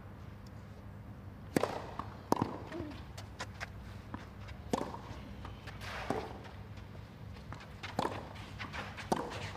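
Tennis rally on a clay court: a serve and then about half a dozen crisp racket-on-ball hits, one every second or two, with faint shoe scuffs on the clay between them.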